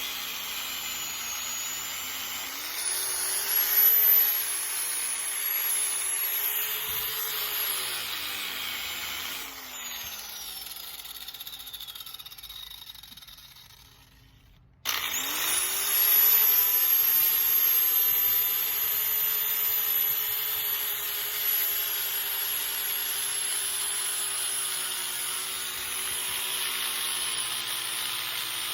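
Angle grinder grinding paint off a metal door hinge, its motor whine dipping and recovering under load. About ten seconds in it is switched off and winds down to a stop. About fifteen seconds in it starts again, spins up quickly and runs steadily.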